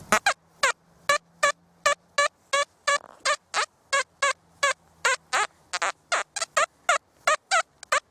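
XP Deus metal detector sounding its target tone, a short chirping beep about twice a second as the coil is swept back and forth over a buried metal target.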